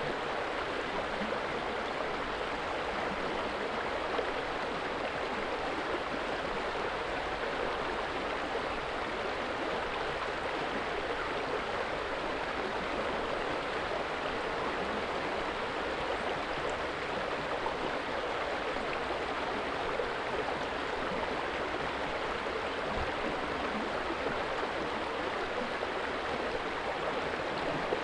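A steady rushing noise, even and unchanging throughout, with no tones or rhythm in it.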